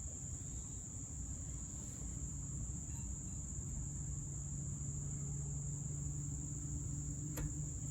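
A steady high-pitched trill over a low background rumble, with a low hum joining about two seconds in and one light click near the end.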